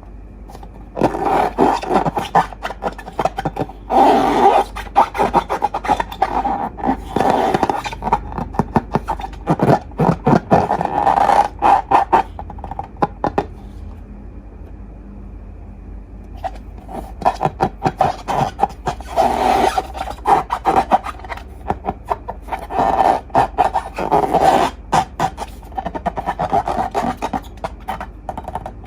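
Slime being squeezed and worked by hand, a dense run of crackling clicks and rubbing in two long spells with a pause of about three seconds between them.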